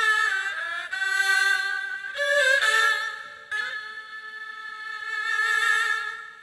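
Haegeum ensemble (Korean two-string fiddles) bowing sustained notes together, with sliding pitch bends and vibrato. The notes come in several swelling phrases and fade away near the end.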